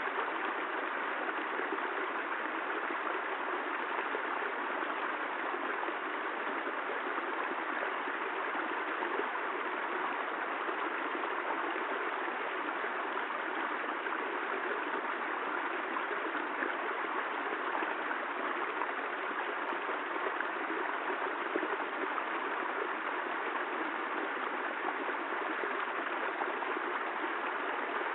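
Steady rain, an even rushing hiss of water with no thunder and no change in level.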